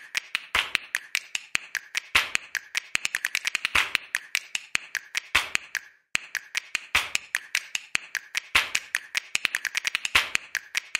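Rapid series of sharp snaps and taps in a quick, uneven rhythm, like a finger-snapping percussion track, with a brief break about six seconds in.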